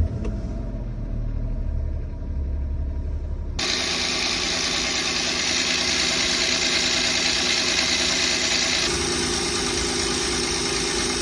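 Car engine just started and idling, its fan belt freshly coated with Vaseline to quiet a noisy belt. The running noise is muffled for the first few seconds, then opens up suddenly to the full engine-bay sound. The owner thinks the Vaseline has quieted the belt.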